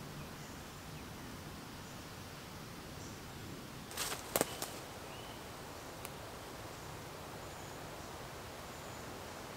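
Camping tarp being handled and pulled taut: a quick cluster of sharp clicks and rustles about four seconds in and a single click about two seconds later, over a steady quiet forest background with a few faint bird chirps.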